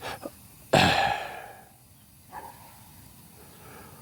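A sharp clunk about a second in, fading over half a second, after a couple of small clicks and followed by a faint knock: a part or tool being handled during the steering box work.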